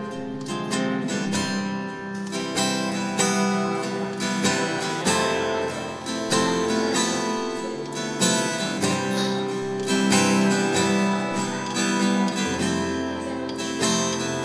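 Solo acoustic guitar played in an instrumental passage with no singing: chords picked and strummed, with many notes struck in quick succession.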